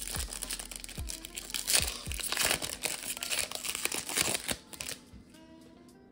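Foil wrapper of a 2023 Bowman baseball card pack being torn open and crinkled by hand; the crinkling stops about five seconds in.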